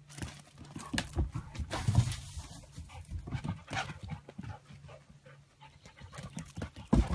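Dogs panting hard in quick, uneven breaths, worked up from rough play, with a couple of louder bursts about two seconds in and near the end.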